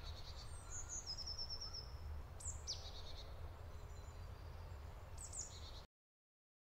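Quiet forest ambience: a few high bird chirps and a short rapid trill over a steady low rumble. It cuts off suddenly to silence near the end.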